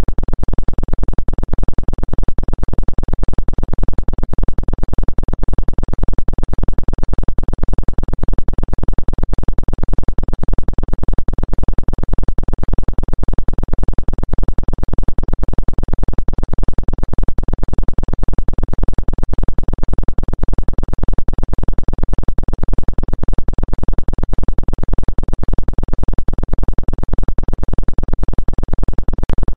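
Steady synthesized drone with a fast, even flutter, its energy in the low and middle range. It is billed as a 2 Hz 'acupuncture frequency' track.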